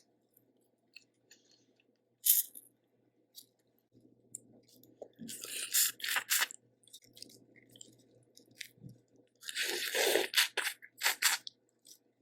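Close-miked eating of boiled seafood: a few sharp cracks, then two longer spells of shell crunching, crackling and chewing near the middle and near the end.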